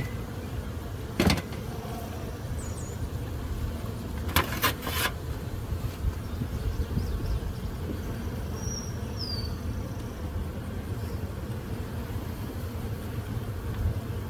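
Steady low hum of honey bees around an opened hive, with a sharp knock about a second in and three quick knocks around four to five seconds in, typical of hive parts or a hive tool knocking on wooden frames. A bird chirps faintly a couple of times.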